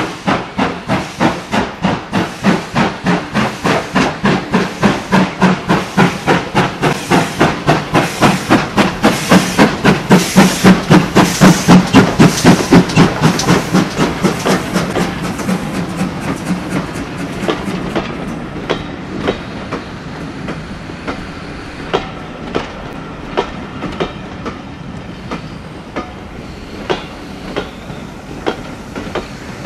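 Steam locomotive hauling a train of coaches out of the station, its exhaust chuffing in steady, even beats that grow loud as it passes and then fade. Once the engine has gone by, the coaches roll past with the wheels clicking over rail joints and pointwork.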